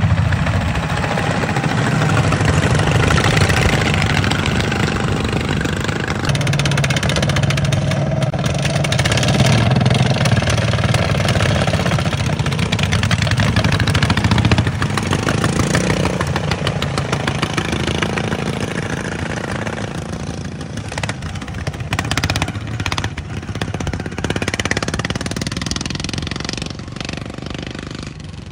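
Several racing lawn mowers' small engines running and revving as the mowers drive past, the sound fading steadily in the second half as they pull away.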